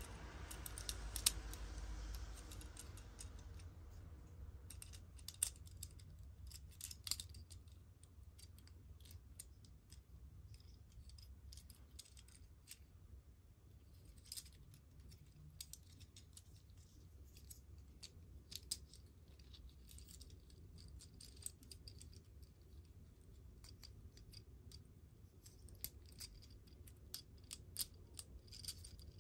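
Small irregular plastic clicks and snaps of a Transformers ambulance robot toy's joints and panels being folded and pushed into place by hand, with light handling rustle, loudest about a second in and again around five to seven seconds in.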